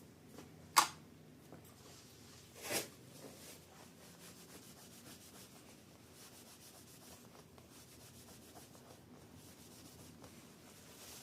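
Tissue rubbing thermal paste off a CPU: faint, continuous wiping strokes, with a sharp click a little under a second in and a louder swish of tissue near three seconds.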